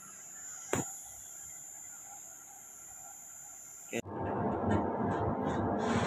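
Inverter-fed ADK brake motor on an NMRV 090 worm gearbox running, heard as steady high-pitched tones over a faint low hum, with a single sharp click about a second in. About four seconds in this gives way abruptly to a louder, even rushing noise.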